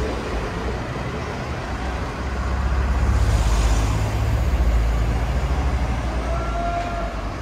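Fire engine's diesel engine running with a heavy low rumble that grows louder for a few seconds in the middle, with a faint high tone near the end.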